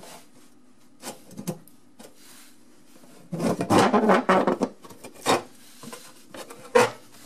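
Knocks, clicks and scraping from handling and fitting the dishwasher's kick plate at the base of the cabinet: a few sharp knocks, a burst of rubbing and clatter about three seconds in, and a sharp knock near the end.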